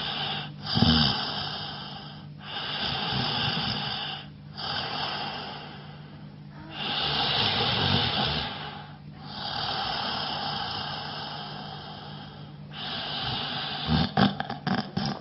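A man snoring: a run of long noisy snoring breaths, each a couple of seconds, with a snort about a second in and short crackly snorts near the end.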